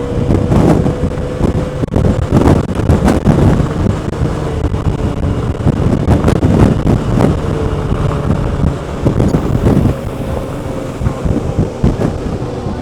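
Honda Forza 125 scooter's single-cylinder four-stroke engine running at motorway speed, heard through a microphone inside the rider's helmet with heavy wind buffeting over it. A steady high note sits above the engine's low drone throughout.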